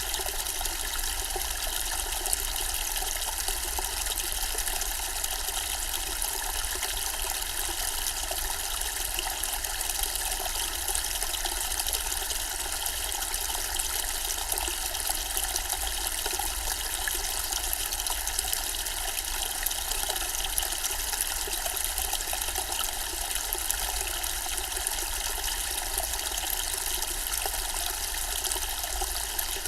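Zen-style water fountain, its water trickling and splashing steadily with a bright, even hiss.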